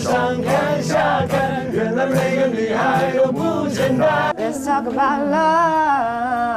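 Several voices singing a Mandarin pop song together over strummed acoustic guitars, ending on a long held note with vibrato.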